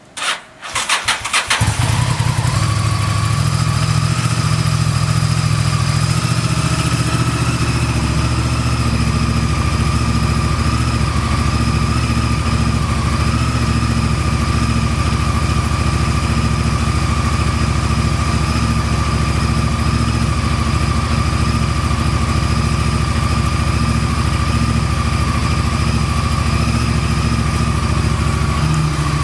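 Honda VTR1000F's 90-degree V-twin engine cranked on the electric starter, catching after about a second and a half, then idling steadily. It starts on the first press and idles evenly with no abnormal noise.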